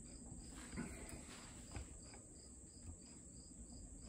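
Faint insect chirping, a short high pulse repeating about three times a second over quiet room tone, with a few soft knocks.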